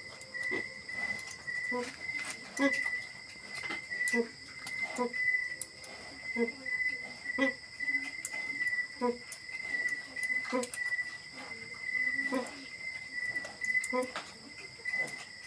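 A nursing sow grunting in a steady rhythm, about one short low grunt a second while her piglets suckle: the nursing grunts that call the litter to the teats and go with milk let-down. A steady high-pitched trill runs underneath.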